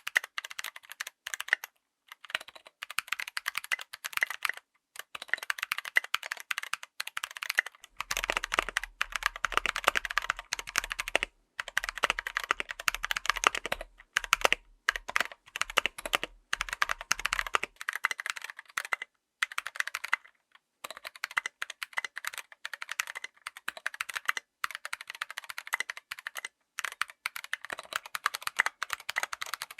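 Fast, continuous typing on a full-size mechanical keyboard with tactile switches: dense runs of key clacks broken by short pauses.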